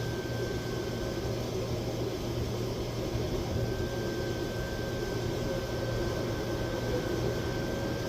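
Small wire-feed welder running one continuous bead, a steady crackling buzz over a low hum, as a steel hanger rod is welded onto a steel exhaust pipe; the arc stops right at the end.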